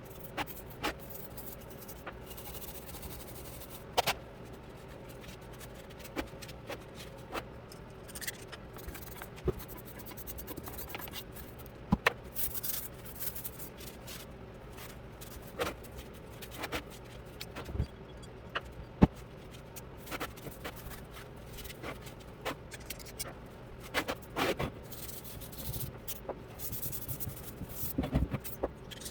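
Irregular clicks and light knocks of metal vise parts and tools being handled during hand work, over a steady background hum.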